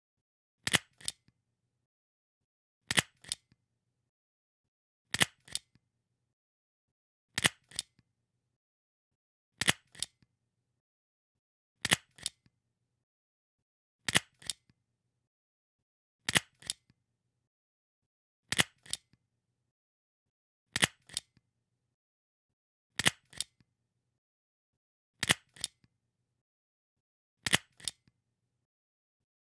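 Stapler pressed and released again and again, each stroke a sharp double click about a third of a second apart, repeating every two seconds or so, about thirteen times.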